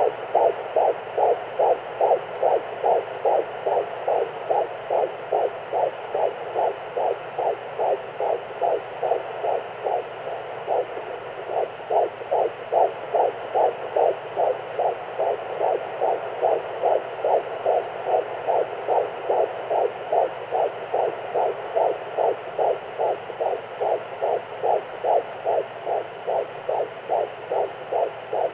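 Fetal heartbeat at 14 weeks, picked up by a Doppler monitor: a fast, even whooshing pulse of about two and a half beats a second over a steady hiss.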